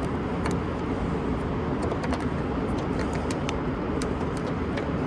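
Steady low background rumble with scattered light clicks and taps of small parts being handled and fitted at a car door handle.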